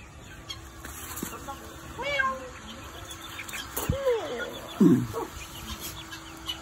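Caged hens calling: three drawn-out, arching cries, the loudest a falling call about five seconds in. A faint steady hum runs underneath.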